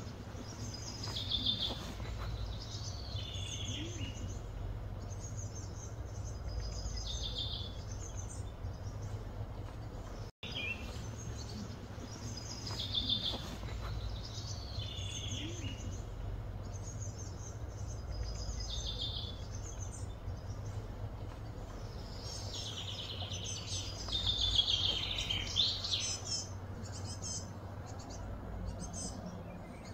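Birds singing in short repeated phrases every few seconds, busiest near the end, over a steady low hum. The sound drops out for an instant about ten seconds in.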